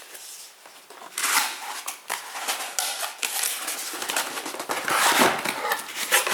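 Cardboard box being opened and its packaging handled: repeated rustling and scraping of cardboard and paper, starting about a second in and loudest around five seconds in.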